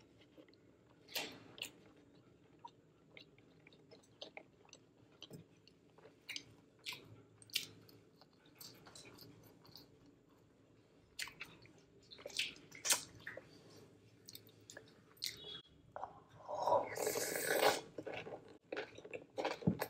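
Close-miked eating: chewing and biting of French fries, burger and cucumber salad, heard as scattered wet mouth clicks and small crunches. Near the end comes a louder noisy stretch of about a second and a half, as a spoonful of salad is taken.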